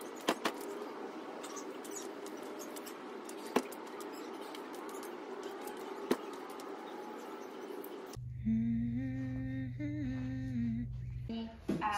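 Faint background noise broken by a few sharp clicks while clothes are hung on a metal drying rack. About eight seconds in this gives way to a soft hummed melody of held notes stepping up and down.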